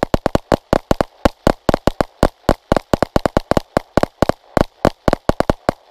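Two 9mm pistols, an HK VP9 and a Glock 17, fired side by side as fast as possible to empty 25-round magazines: a rapid, uneven string of overlapping shots, about eight a second, that stops just before the end.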